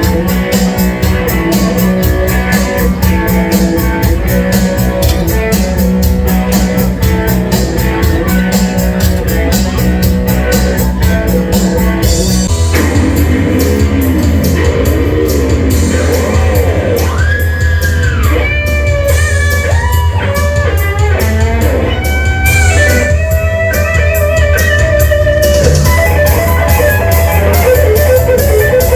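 Rock music with electric guitar, bass guitar and drums, a fast steady beat at first; about twelve seconds in the song changes to a section with a heavier bass and bending guitar lines.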